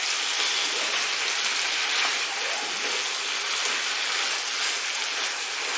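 Chopped bottle gourd and cooked black chickpeas sizzling in oil in a frying pan as they are sautéed and stirred with a wooden spatula: a steady frying hiss with faint scrapes of the spatula.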